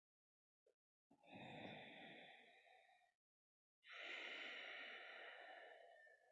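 A woman breathing audibly: two slow breaths of two to three seconds each, an inhale and then an exhale, with a short gap between. The breaths are paced to a yoga side-bend sequence.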